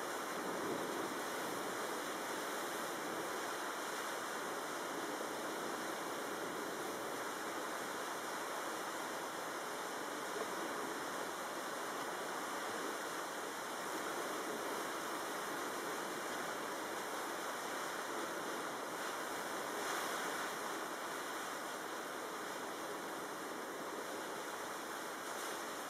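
Steady rush of tropical-storm wind and water, swelling slightly about a second in and again about twenty seconds in.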